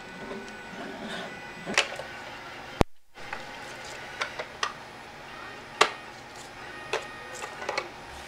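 Hard plastic clicking and knocking as a robot vacuum's charging dock and its cord are handled on a desk, in a few scattered taps with the sharpest about six seconds in. Just before three seconds in there is a sharp click followed by a brief dropout.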